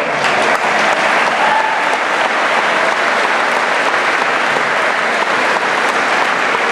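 An audience applauding: sustained, dense clapping that swells up at the start and holds steady.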